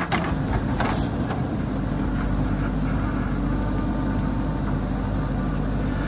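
JCB 3DX backhoe loader's diesel engine running steadily while the backhoe digs, with a few sharp knocks in the first second.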